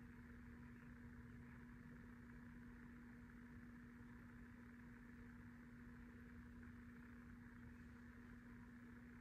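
Near silence: steady room tone with a faint constant hum.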